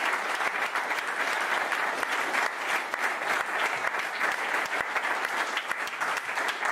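Audience and cast applauding: dense, steady clapping that holds at an even level.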